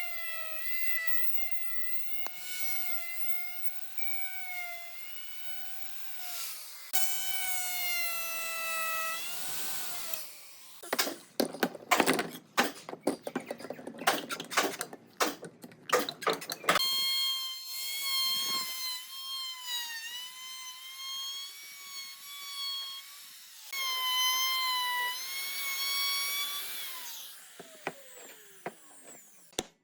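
An electric power tool's motor whines steadily, its pitch sagging and recovering as it takes load, and winds down with a falling pitch when switched off. In the middle, for about six seconds, there is a rapid clatter of sharp knocks, then a higher-pitched motor whine runs for several more seconds before it also winds down.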